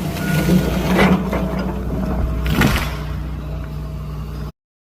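Excavator engine running steadily under load, with two sharp cracks about one second and two and a half seconds in. The sound cuts off abruptly near the end.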